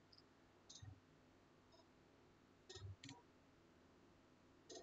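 Near silence broken by about four faint, short clicks spread through the pause.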